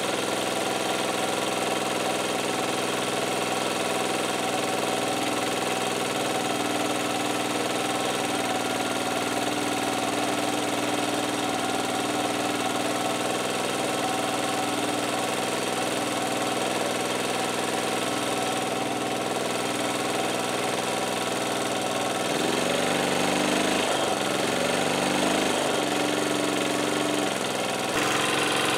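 Portable generator's petrol engine running steadily on wood gas from a homemade gasifier. For the last several seconds its pitch wavers up and down as the engine speed rises and falls.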